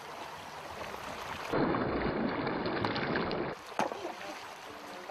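Shallow river water rushing over stones, a steady rushing noise that grows louder for about two seconds in the middle, with a single sharp knock near the end.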